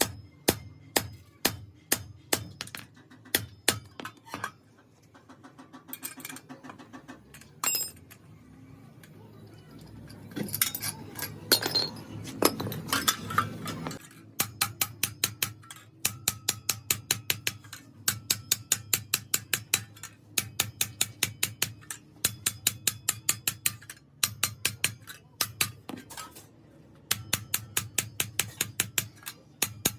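Hammer tapping on metal in steady runs of sharp strikes, about two to four a second, with pauses between the runs and a few seconds of rougher scraping noise in the middle.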